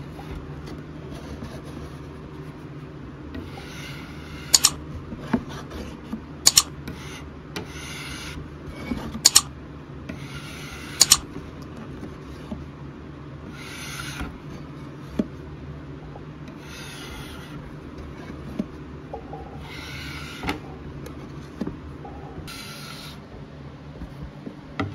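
Metal putty knife scraping stripper-softened old finish off a wooden tabletop in short strokes, about one every two to three seconds. Several sharp clacks of the scraper come in the first half.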